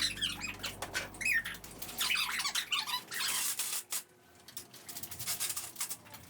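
Small birds chirping in short bursts over scattered light clicks and knocks, with a low hum that fades out about halfway through.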